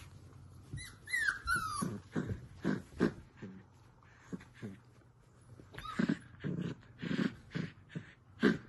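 Belgian Malinois puppy growling in short bursts while tugging and chewing a cloth in play, with a high falling whine about a second in.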